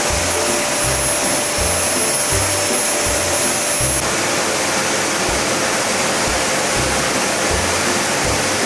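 Loud, steady rushing of a pet hair dryer blowing, with background music keeping a steady bass beat underneath. The dryer noise shifts slightly about four seconds in.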